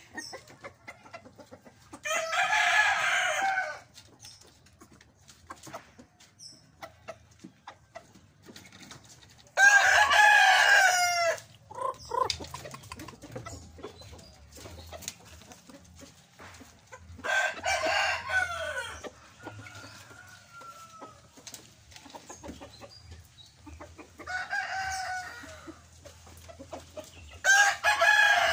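Roosters crowing: five long crows spaced roughly six to eight seconds apart, with quieter clucking in between.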